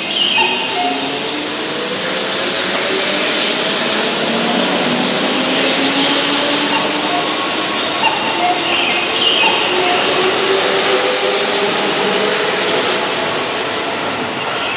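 Keihan 2200-series electric train pulling out of the station and passing close by. Its motors whine in a slowly rising pitch as it gathers speed, over a steady rush of the cars going past.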